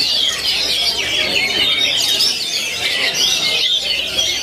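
Several oriental magpie-robins singing at once: a dense, unbroken tangle of quick, varied chirps and whistles.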